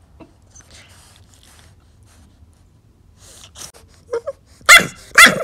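English bulldog puppy play-barking: quiet at first, then two loud barks in quick succession near the end.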